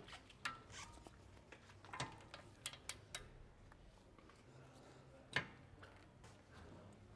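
Scattered sharp clicks and small knocks from a long torque wrench and socket being worked on a front suspension nut that is being tightened to 250 newton-metres. The clicks come in a quick cluster a couple of seconds in, and the loudest single click comes about five seconds in.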